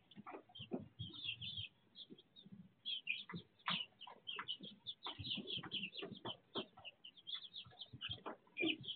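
A flock of young chickens cheeping and chirping, with many short high calls overlapping in quick succession and some softer, lower clucks beneath.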